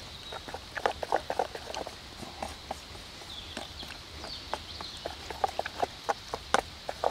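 A wooden spoon stirring thick bean stew in a metal camping pot, giving irregular clacks and scrapes against the pot's wall and bottom.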